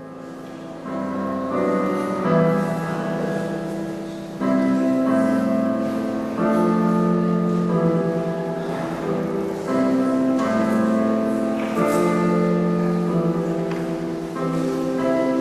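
Slow music with piano: held chords that change every second or two and swell in steps.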